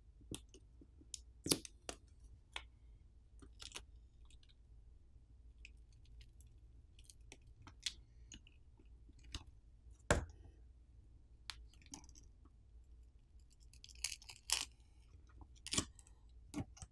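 Faint scattered clicks and crinkles from a phone battery's pull tab being pulled and the battery peeled off its adhesive, with a sharper knock about ten seconds in and a cluster of crackles near the end.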